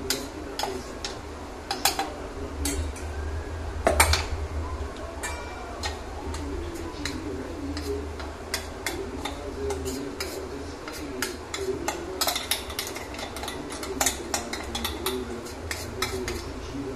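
A metal spoon scraping and tapping inside a stainless steel mixer-grinder jar, knocking ground almond powder out into a steel bowl: irregular clinks and scrapes, with one louder knock about four seconds in.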